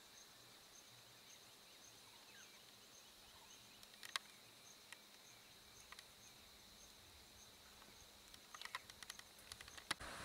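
Near silence: faint outdoor ambience with a steady high whine and a faint insect-like chirp repeating roughly twice a second. A few soft clicks, most of them near the end.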